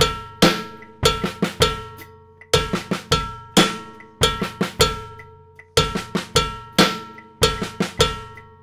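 Drum kit playing a repeating Latin-funk groove: cowbell struck together with the bass drum, two soft snare notes between each pair (right, left, left, right sticking), and an accented snare backbeat closing each phrase. The phrase repeats about every three seconds.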